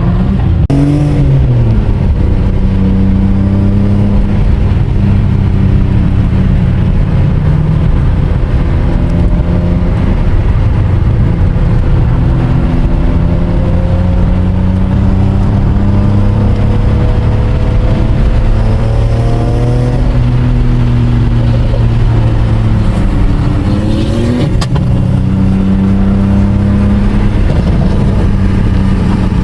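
BMW M3 race car engine running hard, its pitch climbing and falling again and again as it accelerates, shifts and lifts off.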